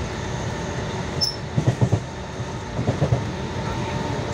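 Mumbai suburban local train running at speed, heard from inside a crowded coach with open doors: steady rumble of the wheels on the rails, with quick runs of clattering knocks about one and a half seconds in and again about three seconds in.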